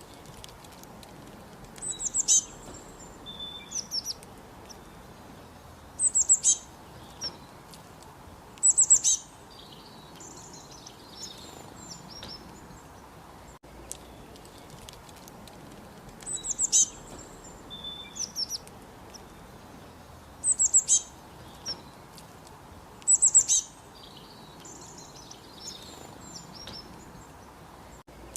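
Songbirds singing: short phrases of quick, high, falling chirps every few seconds over a steady hiss of background. The same stretch of recording repeats about halfway through.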